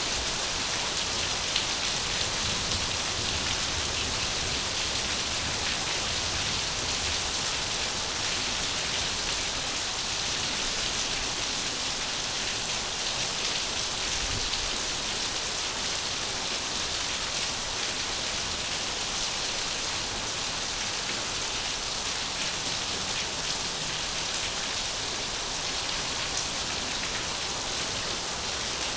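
Steady, unbroken rush of falling water with a fine patter of drops, used as a sleep sound.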